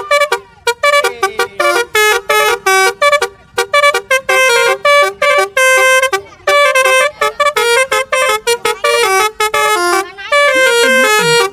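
Basuri-type multi-tone musical horn playing a quick melody of short, bright horn notes one after another, with a few sliding tones near the end.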